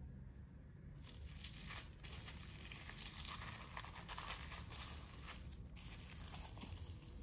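Clear plastic film over a paper print crinkling as it is handled, in irregular crackles that start about a second in.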